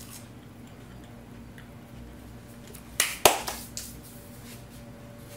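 Two quick hand claps, a third of a second apart about three seconds in, as hands are dusted off against each other, over a faint steady hum.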